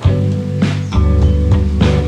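Background music: a steady beat with bass and sustained pitched chords.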